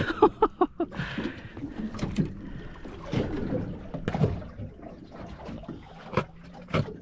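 Handling sounds of a landed giant trevally being unhooked with pliers on a fibreglass boat: a quick run of about six knocks in the first second, then scattered single knocks.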